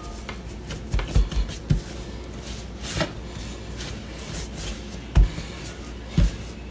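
Scattered soft knocks and thumps, about seven of them, from bolillo dough rolls being shaped by hand and set down one after another, over a steady low hum.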